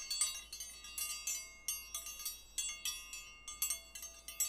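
Wind chimes tinkling: many irregular, overlapping high-pitched strikes, each ringing briefly and dying away.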